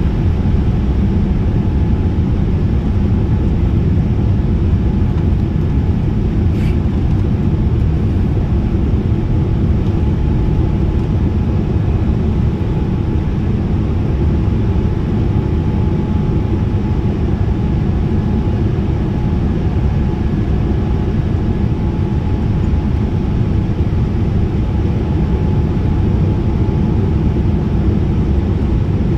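Steady cabin noise of a Boeing 787-10 in flight: the low drone of its General Electric GEnx turbofans blended with the rush of air along the fuselage, heard from inside the cabin, with a faint steady hum running through it.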